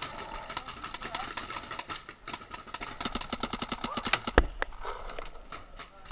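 Paintball markers firing: scattered single shots, then a rapid string of about ten shots a second around three seconds in, ending in one loud knock just past four seconds.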